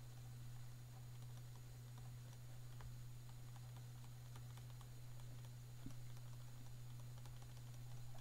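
Faint, scattered taps and clicks of a stylus on a pen tablet as words are handwritten, over a steady low electrical hum.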